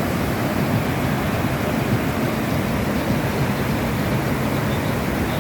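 Steady rushing of flowing water, like a river or waterfall, an even unbroken noise with a deep rumble underneath.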